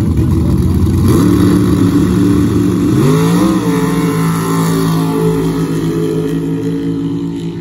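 Two old pickup trucks launching from the drag-strip start line at full throttle and accelerating away. The engine note climbs in pitch about a second in and again about three seconds in, then slowly fades as the trucks pull away.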